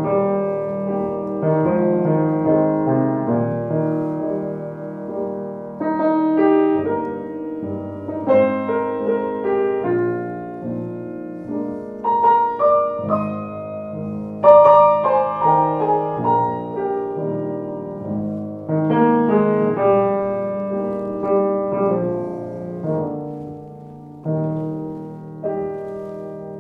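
Freshly restored c1887 Blüthner style VIII grand piano, fitted with new hammers, being played: a piece in struck chords about once a second, the notes ringing on and overlapping, with a louder passage midway.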